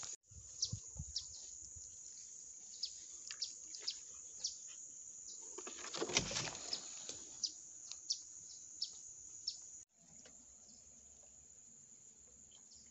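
Birds chirping in short, sharp, falling calls over a steady high insect buzz. There is a brief rustling noise about six seconds in, and the sound drops out for a moment near ten seconds before going on more quietly.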